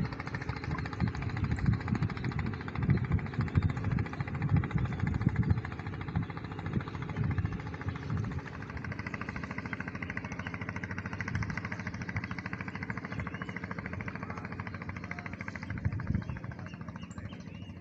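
A small fishing boat's engine running steadily, with a rapid, even pulse. Low gusts of wind buffet the microphone during the first six seconds or so.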